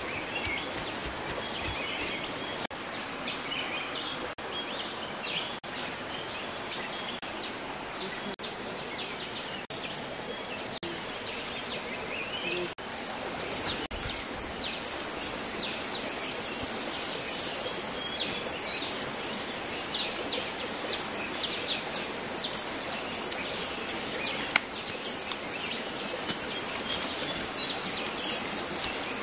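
Forest ambience with scattered bird chirps. About halfway through, a loud, steady, high-pitched insect drone starts abruptly and runs on.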